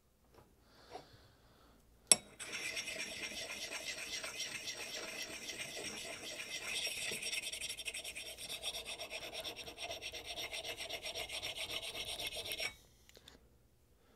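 A sharpening stone rubbed in rapid back-and-forth strokes over the steel corner of a Vulcan hewing axe head, grinding the end down square. The strokes start after a single sharp click about two seconds in and stop a little before the end.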